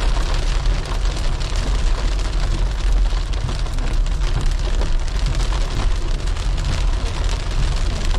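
Small hail pellets pattering steadily on a car's windshield and roof, heard from inside the cabin, over the low rumble of the car rolling on the road.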